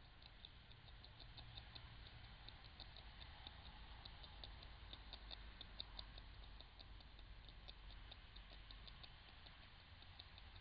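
European beaver gnawing and chewing bark off willow twigs: a faint, irregular run of short crisp clicks, several a second.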